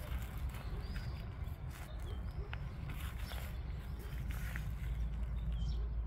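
Wind rumbling low and steady on the microphone, with faint, short bird chirps scattered through it.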